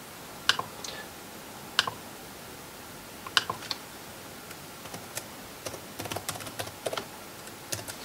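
Typing on a Lenovo C330 Chromebook's keyboard: a few single sharp key clicks spread over the first few seconds, then a quick run of keystrokes about five to seven seconds in, as a login password is entered.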